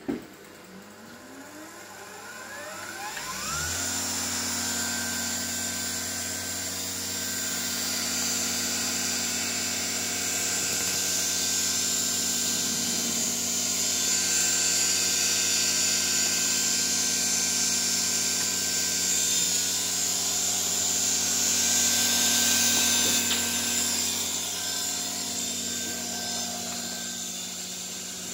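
A click as a switch is thrown, then the AN/GRC-9 radio set's dynamotor power supply spins up, its whine rising over about three seconds, and settles into a steady hum with a high whine and hiss.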